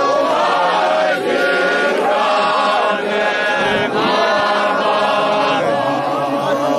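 Men's choir singing a Shona hymn unaccompanied, many voices together in sustained, chant-like harmony.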